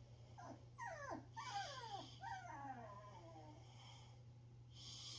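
Corgipoo puppy (corgi–poodle mix) whining in its crate: a run of high, falling cries, several close together in the first three seconds, then fading off. It is the crate crying of a new puppy.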